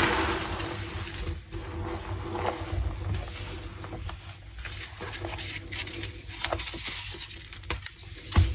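Reformed gym chalk blocks crunching and cracking as they are squeezed and crumbled by hand. The crunching comes in irregular sharp snaps, the loudest right at the start and another near the end, with the squeaky crunch that dried reformed chalk gives when crushed.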